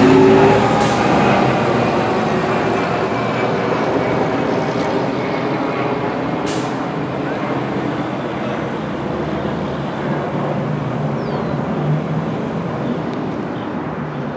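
A fire engine's diesel engine pulls away down a street with traffic around it, slowly fading as it goes. There is a brief high hiss about six and a half seconds in.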